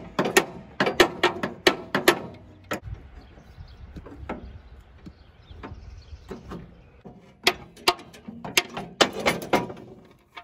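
Sharp metal knocks and clanks, several a second, as a socket wrench is forced onto the rounded drain plug of the Mitsubishi MT372's oil pan. There is a run of knocks at the start, scattered ones in the middle, and another run near the end.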